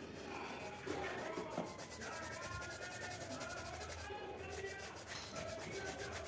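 A wet, soapy shoe being scrubbed by hand in quick, even strokes, several a second, with a short pause about four seconds in.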